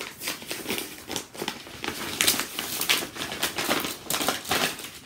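Sheet of paper being folded and crumpled in the hands: a run of irregular crinkling rustles, loudest a little past the middle.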